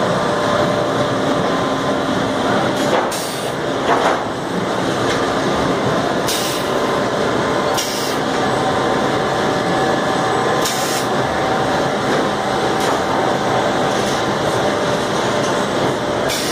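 Brick-handling factory automation line running: conveyors and loader machinery with a steady mechanical drone and a few held motor tones, and short hisses every couple of seconds.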